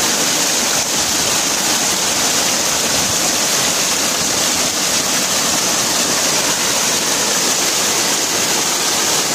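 Small waterfall pouring onto rocks: a steady, unbroken rush of falling water.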